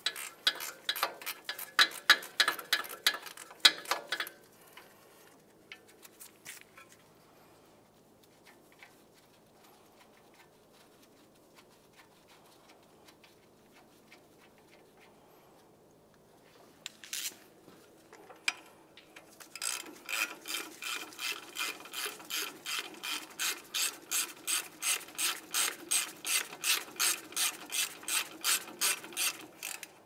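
Socket ratchet clicking while loosening a brake caliper bracket bolt: a quick irregular run of clicks at first, then, after a long quiet pause, steady ratcheting at about three clicks a second for the last ten seconds.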